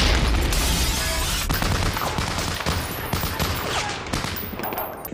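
War-film battle sound: a heavy explosion goes off at the start with a deep, loud blast. Dense rifle and machine-gun fire carries on after it and slowly fades toward the end.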